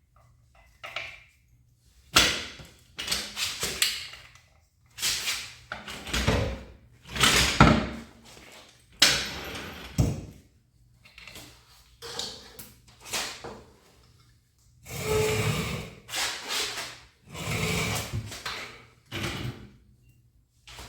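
A series of irregular scrapes and clunks, each lasting up to about a second and a half, with short quiet gaps between them.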